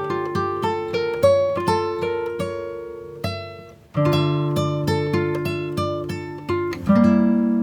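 Background music: acoustic guitar picking notes in a steady rhythm, with a brief break about four seconds in.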